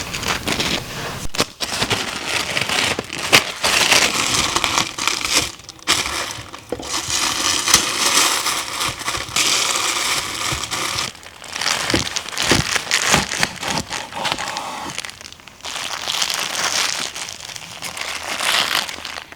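Continuous crinkling and rustling with many small snaps and crackles, in irregular spurts that drop away briefly several times.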